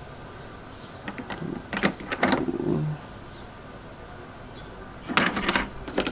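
Metal crimping dies clinking and clicking against a hydraulic crimping tool's die holder as they are handled and fitted, in two clusters of sharp clicks, about a second in and again near the end.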